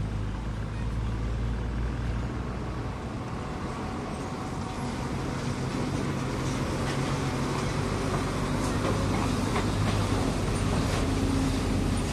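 Heavy trucks' diesel engines running at low speed as they roll past: first a red Isuzu tank truck, then a green container truck approaching, with the engine rumble growing louder toward the end.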